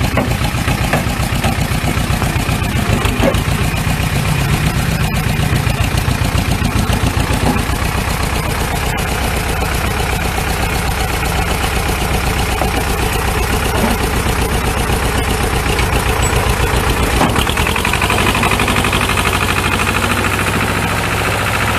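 Small farm tractor's diesel engine running steadily under load while towing a loaded trailer over rough ground, with an even, fast chugging. The deepest part of the engine sound falls away about three-quarters of the way through.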